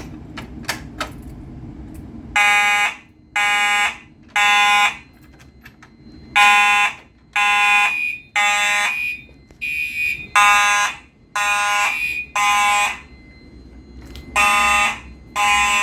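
Fire alarm horns sounding in the temporal-three evacuation pattern: three buzzy blasts about a second apart, a short pause, then three more, repeating. They start about two seconds in, after a few faint clicks.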